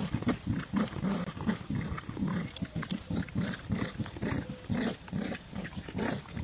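Dogs play-growling during a tug-of-war over a toy: a steady string of short, low growls, several a second.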